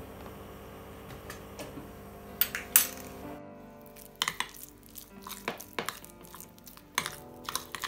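Metal spoon clinking and scraping against a glass bowl while stirring thick tomato-paste sauce. A couple of sharp clinks come about two and a half seconds in, then a run of quick irregular taps and scrapes through the second half.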